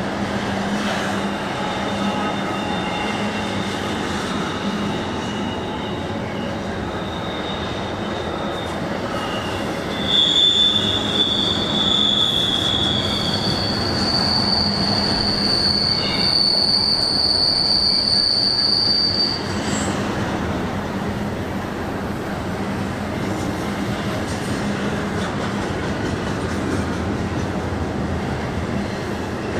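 A train rolling past, its steel wheels rumbling on the rails with steady clatter. High-pitched wheel squeal comes and goes, strongest from about ten seconds to nearly twenty seconds in.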